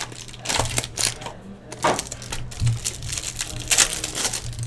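Trading cards and their plastic and foil packaging being handled by hand: irregular rustles and sharp clicks.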